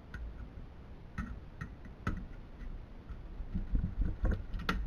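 Irregular clicks and knocks of parts and tools being handled while a DLP television is taken apart by hand, with a cluster of louder knocks and dull thumps near the end.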